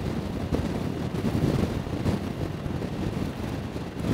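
Wind buffeting the microphone of a camera on a moving Honda Gold Wing motorcycle, with the bike's engine and tyre noise underneath as a steady low rumble.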